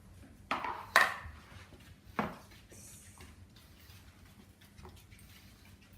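A few brief knocks and rubbing sounds of things being handled, about half a second, one second and two seconds in, then a quiet room.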